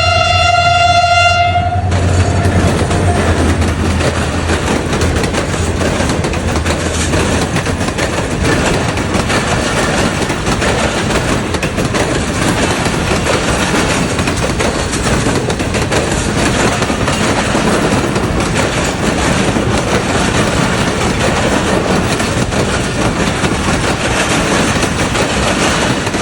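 A diesel locomotive's horn sounds and cuts off about two seconds in. The loud, steady rush and clatter of the passing train's wagons follows. The locomotive's low engine drone fades out after about eight seconds.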